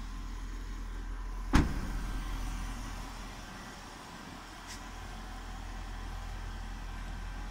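The driver's door of a Range Rover SV Autobiography is shut about one and a half seconds in: a single solid thud with a short echoing tail. A faint high tick follows a few seconds later over a steady low hum.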